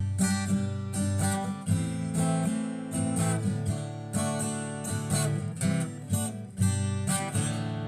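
Intro music: acoustic guitar strummed and plucked in a steady rhythm.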